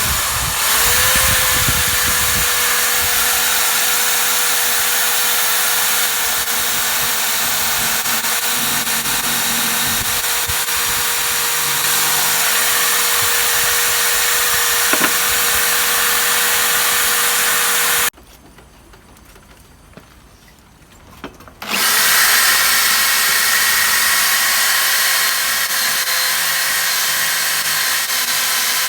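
Electric power tool running at steady speed, a steady motor tone under a high scrubbing hiss, as it works rust off an old steel wrench. It stops about 18 seconds in, then spins back up some three seconds later and runs on.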